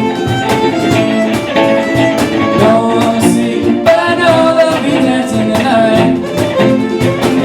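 Country-style band music: strummed guitar and a fiddle playing on, with singing.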